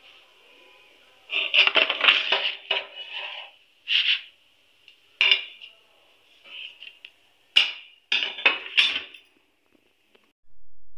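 Steel slotted spoon (jhara) scraping and clinking against a kadhai as fried besan sev is scooped out of the hot oil, in several irregular bursts, with a faint hiss of the frying oil between them.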